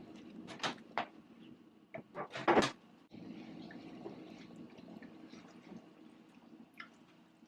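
Kitchen handling sounds: a few sharp knocks and clicks of cookware or cupboards, the loudest about two and a half seconds in, over a steady low hum.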